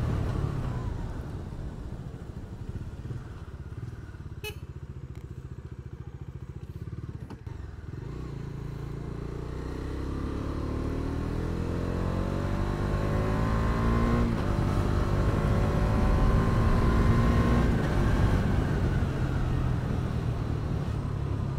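Bajaj Dominar 250's single-cylinder engine heard from the rider's seat, running low at first and then accelerating hard from about eight seconds in, its pitch climbing. A gear change comes about fourteen seconds in, and the engine then holds high revs up to about 70 km/h.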